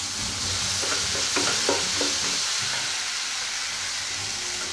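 Onion-tomato masala with green peas sizzling in a kadai while a wooden spatula stirs it. A few short scrapes and taps of the spatula against the pan come between about one and two seconds in.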